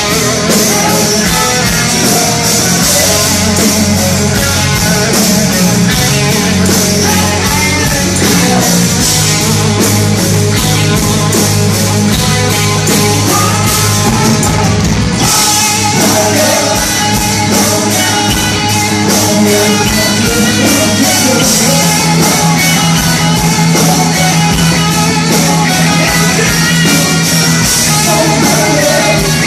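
Live rock band playing loud: distorted electric guitar over bass and a steady drum beat, with the singer's vocals coming in over the band.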